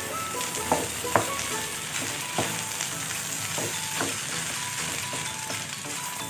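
Garlic fried rice being stir-fried in a hot nonstick pan with a wooden spatula: a steady sizzle, broken by several soft knocks and scrapes of the spatula against the pan.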